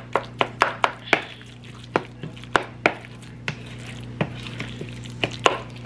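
Plastic slotted spoon knocking and scraping against a bowl while mashing and stirring a salmon croquette mixture: sharp taps, several in quick succession in the first second, then spaced out, over a steady low hum.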